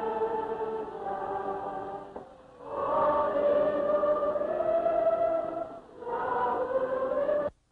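A choir singing held chords in three long phrases with brief breaks between them, cut off abruptly near the end.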